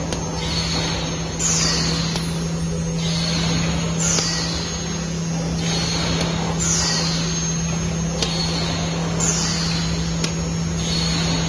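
Paper box making machine running: a steady low hum, with a hissing sweep that falls in pitch about every two and a half seconds and a few sharp clicks.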